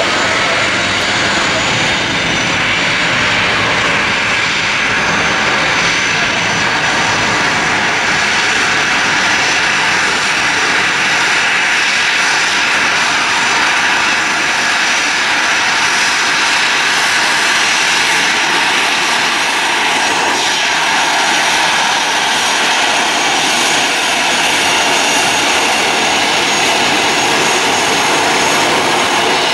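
Boeing 777 freighter's GE90 jet engines at takeoff thrust as the aircraft rolls down the runway: a loud, steady jet roar.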